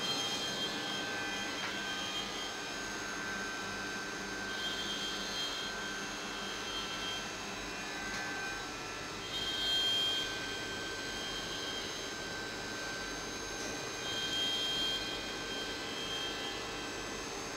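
CNC milling machine running with a steady mechanical whine and hum, a higher tone coming and going every four to five seconds.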